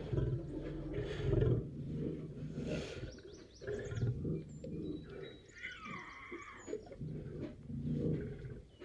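Lion roaring, a series of deep, rumbling roars that swell and fade several times, the strongest about a second and a half in.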